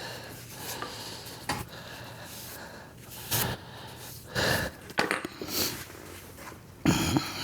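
A few short, scattered handling noises, rubs and light knocks, as a driveshaft is cleaned by hand, over a low steady hum.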